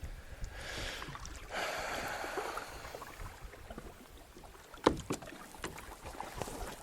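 Kayak paddling: water splashing and hissing for the first few seconds, then quieter, with one sharp knock about five seconds in.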